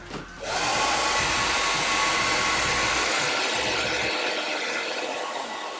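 Handheld hair dryer switched on about half a second in and blowing steadily, a dense rushing noise with a faint steady whine.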